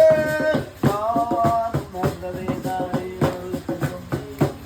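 Music: a voice singing a held, wavering line over a steady percussion beat, the voice dropping out about two seconds in while the beat and lower sustained tones go on.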